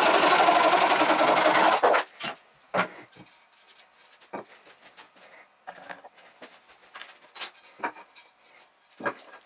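Handsaw cutting through a wooden bench leg, sped up fourfold so the rapid strokes run together into a steady buzz that stops abruptly about two seconds in. Then a scattering of light knocks and clicks as the saw and wood are set down on the bench.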